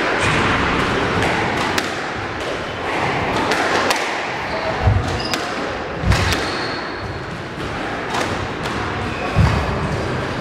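Squash rally: the ball cracking off the rackets and thudding against the court walls, a sharp hit every second or two, starting a couple of seconds in.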